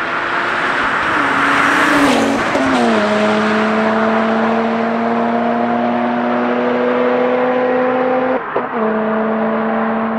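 BMW 1M Coupe's twin-turbo N54 straight-six running loud through an Akrapovic titanium exhaust with catless downpipes. The pitch steps down about two to three seconds in, then climbs slowly under load. It breaks off briefly at about eight and a half seconds and picks up again lower, as on an upshift.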